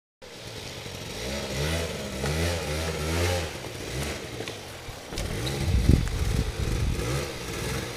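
A 100cc quad bike's small engine revving up and down in repeated surges while the quad struggles through deep mud. From about five seconds in it gets louder and lower, with a couple of harder bursts of throttle.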